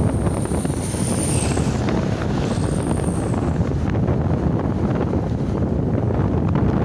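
Wind buffeting the microphone on a moving motorcycle, a steady roar with the engine and tyre noise underneath. A thin high whine comes in twice in the first three seconds.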